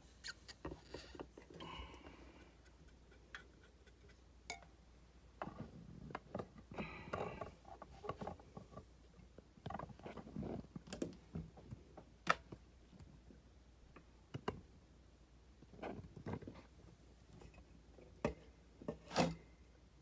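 Scattered light clicks, taps and rustles of handling at a table, beginning as a rock is lowered into a glass beaker of hydrogen peroxide. Sharper clicks come about twelve and nineteen seconds in.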